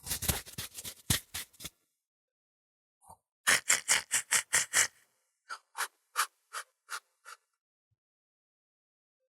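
A handmade cartoon sound effect made with an everyday object: short, sharp strokes in three runs. First a quick flurry, then about ten fast strokes a few seconds in, then six slower, evenly spaced strokes.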